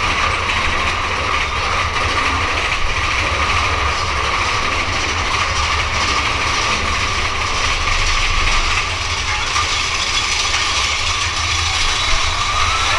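Big Thunder Mountain Railroad mine-train roller coaster running along its track through a rock tunnel: a steady, loud rumble of wheels on rails.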